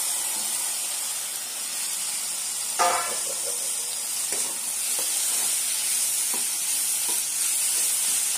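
Sliced tomatoes sizzling in hot oil and onion-masala in a kadai, a steady hiss. A steel spatula scrapes the pan in regular strokes as they are stirred, with one louder metal clank and short ring about three seconds in.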